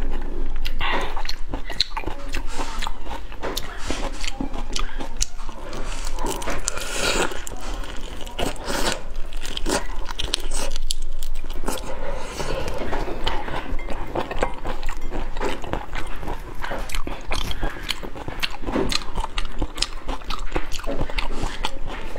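Raw prawns being pulled apart by hand, bitten and chewed close to a clip-on microphone: a dense run of short clicks and crackles.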